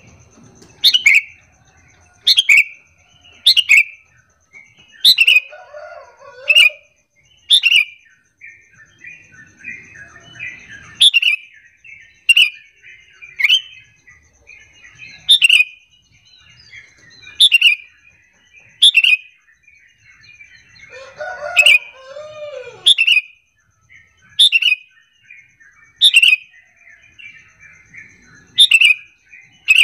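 Sooty-headed bulbul (kutilang) calls: loud, sharp chirps repeated about once a second, with softer chattering between them and two lower slurred notes. This is a bulbul lure call meant to set other bulbuls answering.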